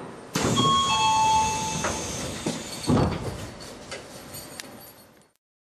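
Sounds of a commuter train standing at a terminal platform: a sudden loud hiss with several steady ringing tones for about a second and a half, then a thump about three seconds in, fading away.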